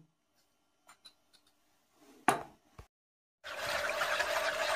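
A wooden spoon stirring milk in a plastic mixing bowl: a steady scraping swish that starts about three and a half seconds in. A single sharp knock comes a little past two seconds.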